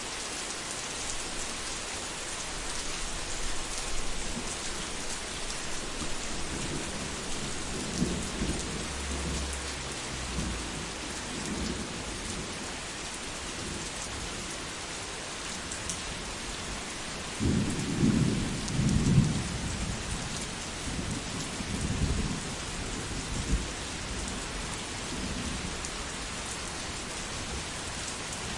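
Thunderstorm: steady rain hiss with rolling thunder, a low rumble about a quarter of the way in and a louder, longer peal from just past halfway that rolls on for several seconds.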